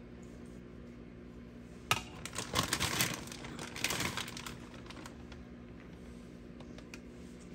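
A sudden burst of light clicking, clattering and rustling about two seconds in, lasting a couple of seconds, from kitchen handling while filling a tortilla for a burrito. A steady low hum runs underneath.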